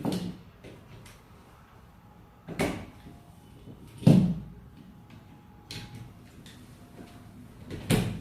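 Plastic plugs being pushed into and handled at the outlets of a waterproof power strip: four clunks a couple of seconds apart, plus a fainter one, the loudest about four seconds in.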